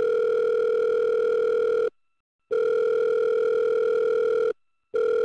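Telephone ringback tone on a phone call, the caller's line ringing: a steady tone sounding for about two seconds with a half-second gap, twice, then starting a third time near the end.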